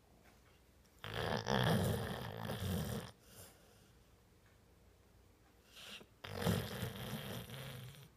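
Pit bull snoring in deep sleep: two snores, each about two seconds long, one starting about a second in and the next about five seconds later.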